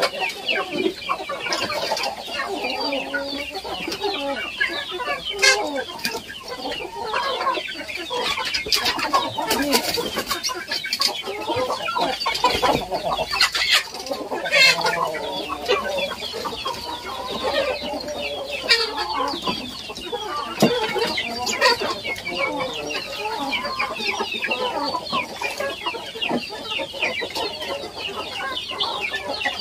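A flock of kampung chickens clucking and calling continuously, many birds at once, with a few sharp knocks mixed in.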